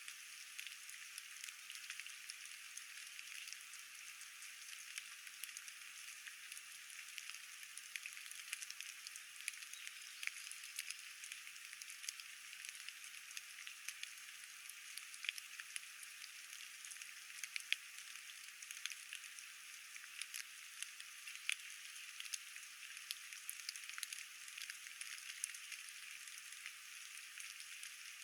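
Steady rain falling, a soft even patter with many separate drops ticking sharply throughout.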